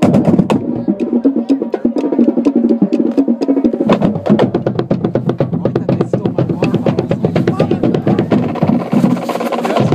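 Marching band drums playing a fast cadence, with dense rapid strokes over low pitched drum tones.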